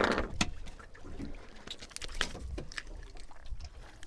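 Water sloshing against the side of a small open fishing boat, loudest right at the start, with scattered sharp clicks and taps as hands work a hook out of a caught fish, over a low wind rumble.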